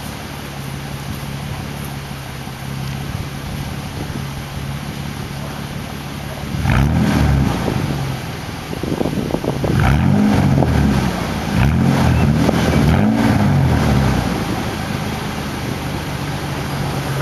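2002 Ford Ranger's 4.0 SOHC V6 heard at the tailpipe, idling steadily while it burns off a SeaFoam treatment drawn in through a vacuum line. About a third of the way in the throttle is blipped about four times, each rev rising and falling, before the engine settles back to idle.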